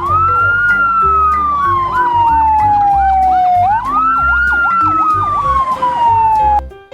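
Emergency-vehicle siren: a slow wail that rises quickly and then falls gradually, twice, with a faster warble of about three sweeps a second over it. It cuts off just before the end. Background music with a steady bass beat runs beneath.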